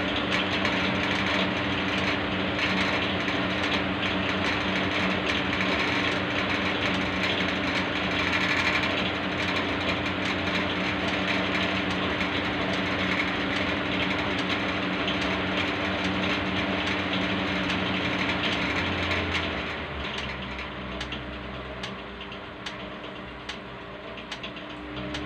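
Electric motor-driven machinery running on the mains supply: a steady hum with a dense, rattling clatter. About 19 seconds in it turns quieter and its hum weakens while the supply voltage sags to around 210 volts.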